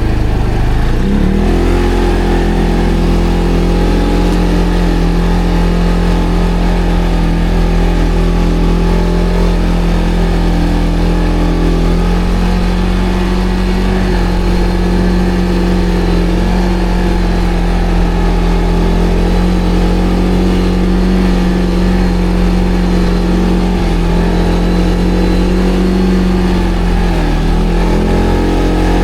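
ATV engine running under throttle: it revs up in the first second or two, holds a steady note, then drops briefly near the end and picks up again.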